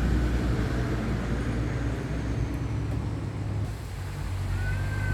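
Strong wind buffeting the microphone: a steady, heavy low rumble.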